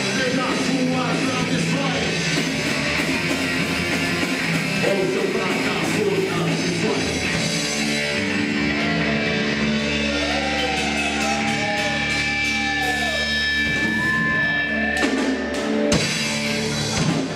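Live rock band playing: distorted electric guitar, bass guitar and drum kit, with a singer's voice over the top. In the second half the band holds long notes, and a few sharp drum hits come near the end.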